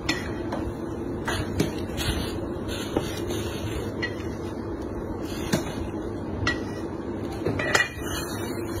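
Scattered light knocks and clicks as chopped meat pieces are picked up off a wooden chopping board and dropped into a plastic bag, with louder bag handling near the end, over a steady background hum.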